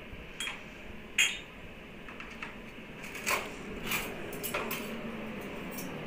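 A handful of light clicks and clinks, about six spread over several seconds, over a faint steady background.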